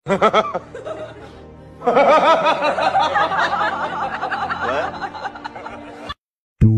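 Background music with a snickering, chuckling laugh laid over it, which stops abruptly near the end.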